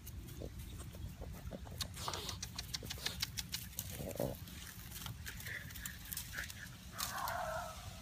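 Boston Terrier puppy grunting as she plays with a downed bamboo stalk: a short grunt about four seconds in and a longer one near the end. Between them, a quick run of clicks and rustling of dry bamboo and grass as she tears at it.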